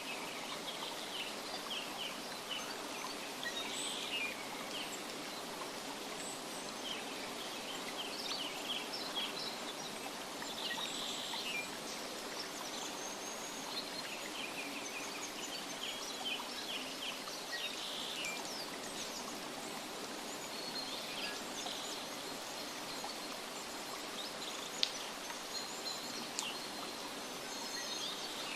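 Nature ambience: a steady rushing noise, like a running stream, under small birds chirping in quick high trills that come in short clusters every second or two. A single sharp click about 25 seconds in.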